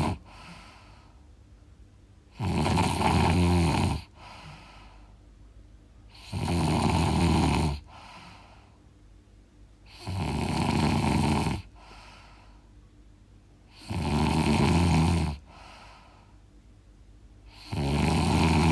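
A person snoring loudly in a steady rhythm: each snore lasts about a second and a half and comes roughly every four seconds, followed by a short, soft breath.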